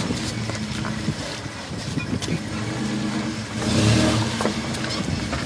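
Engine of a lifted SUV crawling over rocks at low speed, running steadily and revving up briefly about three and a half seconds in, with a few faint clicks.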